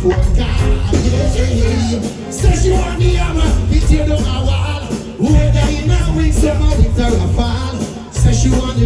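Live reggae band music with a heavy bass line and a singing voice over it.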